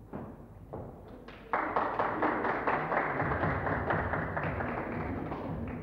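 Dancers' feet tapping and thudding on a wooden parquet floor. A few separate knocks come first, then about a second and a half in a loud run of steps begins at a quick, even beat.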